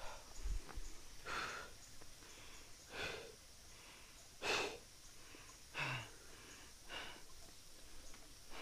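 A person breathing near the microphone: about five short, soft exhales, roughly a second apart.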